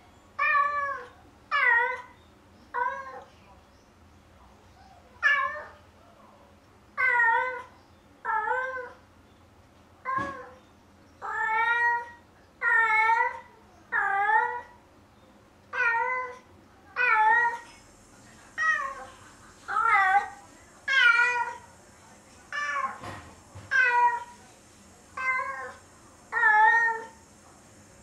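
Domestic cat meowing over and over, about nineteen separate meows roughly one every second or so, with a short pause a few seconds in.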